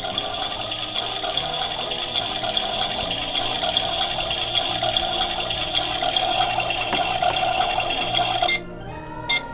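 Toy oven's electronic cooking sound effect, set off by pressing its chicken button: a steady electronic tone from the toy's speaker that cuts off about eight and a half seconds in as the cooking cycle ends, followed by a short beep.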